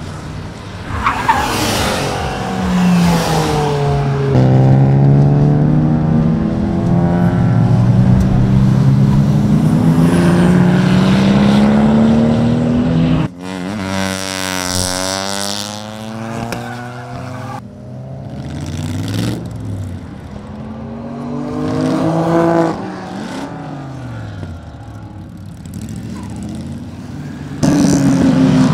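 Cars lapping a race circuit one after another, among them an Audi A6 saloon and Honda Civics. Each engine revs up and falls back through the gears as it passes. The sound changes abruptly several times as the footage cuts from one car to the next.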